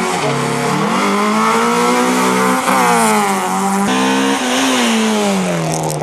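Race car's engine revving hard under acceleration in a hill climb. Its pitch climbs, drops sharply at gear changes about two and a half and four seconds in, then falls away near the end.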